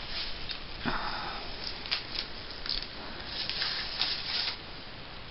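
Paper rustling and crinkling in irregular bursts as a child pulls the contents out of a Christmas stocking, stopping about four and a half seconds in.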